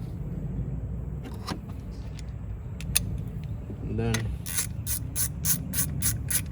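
A few scattered light clicks of tools and parts being handled, then, from about four and a half seconds in, a hand ratchet clicking in quick even strokes, about four a second, as a coil pack screw is snugged down, over a steady low hum.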